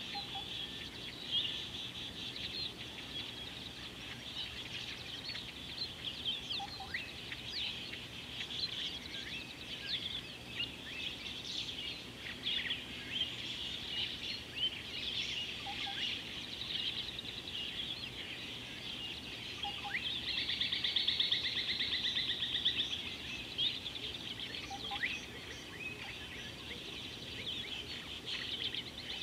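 A chorus of many wild birds chirping and calling over one another without a break. A louder, rapid trill stands out for about three seconds two-thirds of the way through, and faint short low calls recur every few seconds.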